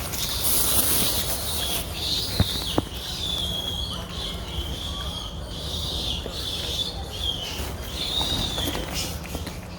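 Baby monkey crying in long, high-pitched wavering whines that rise and dip and break now and then. Two sharp clicks about two and a half seconds in.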